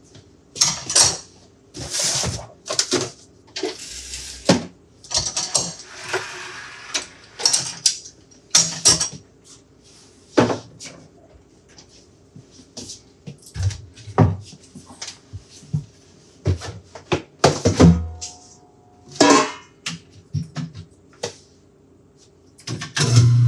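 Repeated clattering and clinking of mugs, dishes and tools being moved around a kitchen counter and sink, with knocks from a cabinet door being opened, over background music.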